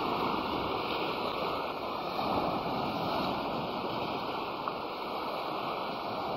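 Ocean surf washing on a beach, a steady rushing noise, with wind buffeting the microphone.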